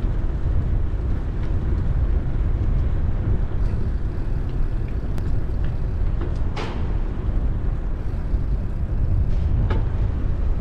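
Rolling rumble of a 2004 Cannondale F400 mountain bike riding along a canal towpath: steady tyre noise and wind on the bike-mounted camera's microphone, with a few brief sharp clicks or chirps over it, the clearest about six and a half seconds in.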